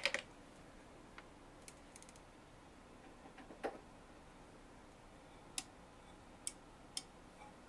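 Scattered light clicks and taps of headphones and studio gear being handled, about nine in all. The sharpest come right at the start and about three and a half seconds in, over a faint steady background hiss.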